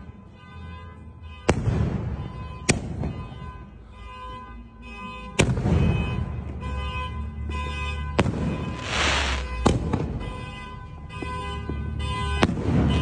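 A 4-inch, 16-shot fireworks cake firing: about six sharp bangs of shells bursting, a couple of seconds apart, with two longer crackling hisses, one about nine seconds in and one near the end.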